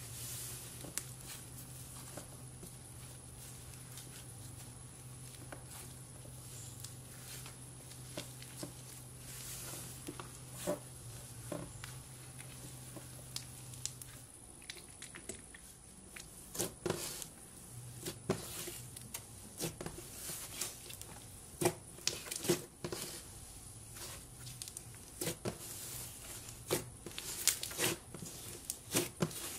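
Hands squishing, stretching and tearing fluffy green slime: soft crackling with irregular little pops and clicks, which come sharper and more often from about halfway through.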